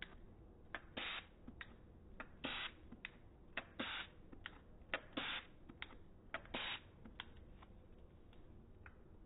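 Hand spray bottle squirted in short hissing bursts, about five sprays roughly a second and a half apart, with sharp clicks in between. The spray lands as a fine mist on wet alcohol ink and speckles it.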